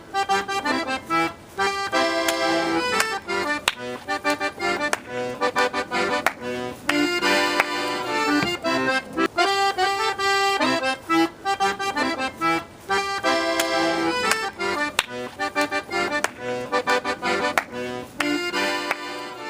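Lively accordion music playing a repeating melody with a steady rhythm.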